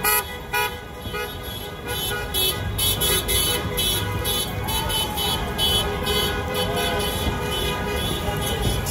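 Many car horns honking at once, long overlapping blasts, in celebration amid street noise.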